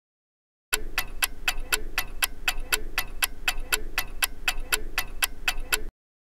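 Clock-ticking sound effect for a countdown timer: even, sharp ticks at about four a second. It starts about a second in and stops abruptly near the end.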